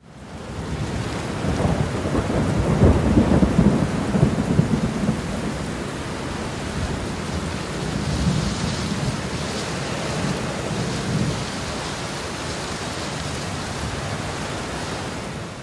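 Thunderstorm sound effect: a steady hiss of rain with rumbles of thunder, heaviest a couple of seconds in, stopping abruptly near the end.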